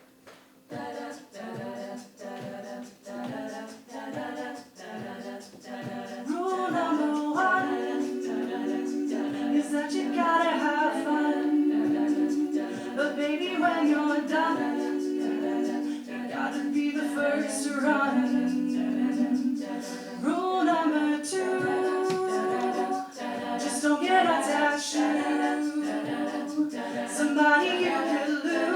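A cappella vocal group singing a pop cover with no instruments. Short rhythmic pulses of backing voices open it, and about six seconds in the full group joins louder with sustained chords under a lead voice that slides between notes.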